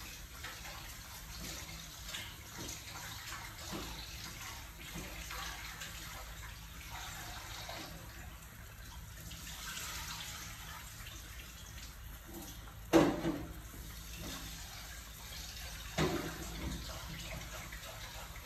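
Pot of soup with meatballs and vegetables at a rolling boil: a steady bubbling. Two sharp knocks stand out, about two-thirds of the way through and again three seconds later.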